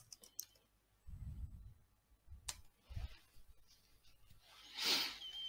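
A few computer keyboard keystrokes in the first half-second as the last letters of a command are typed and Enter is pressed, then quiet with a single sharp click about two and a half seconds in and a short hiss near the end.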